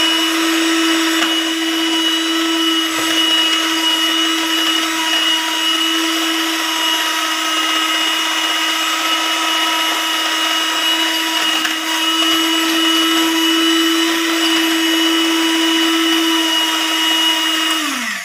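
Electric hand mixer running steadily at one speed, its beaters whisking cream and milk, with a steady motor whine; near the end the whine drops in pitch and dies away as the mixer is switched off.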